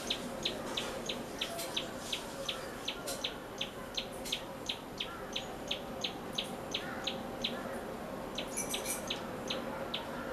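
Common tailorbird singing: a long series of short, sharp, high notes repeated evenly, about three a second. A brief higher twitter breaks in about eight and a half seconds in.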